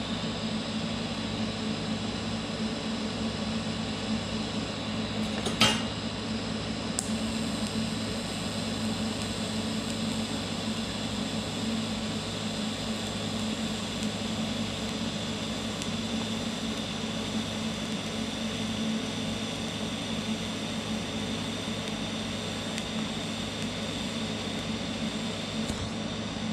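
DC TIG welding arc from a Vulcan OmniPro 220 burning steadily on turned-down heat, an even hiss with a low buzz under it. A single sharp click about five and a half seconds in.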